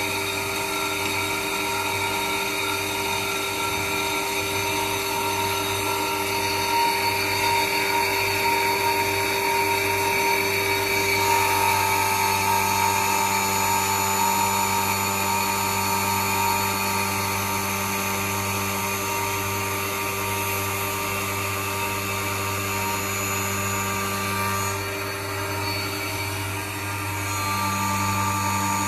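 Schneeberger Centromat grinding machine running under power: a steady motor hum with several high whines from its spindles. A further whine joins about eleven seconds in, drops out briefly near the end and then comes back.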